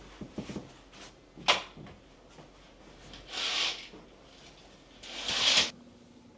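Household handling sounds: a few light clicks and a sharp knock, then two short hissing bursts about two seconds apart.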